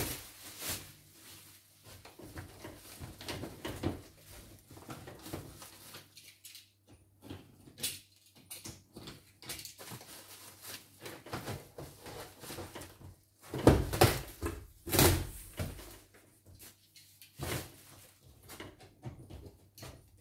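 Cardboard box and its plastic wrapping being handled and cut open: irregular rustling, scraping and knocks, with a cluster of louder knocks and crinkles about two-thirds of the way through.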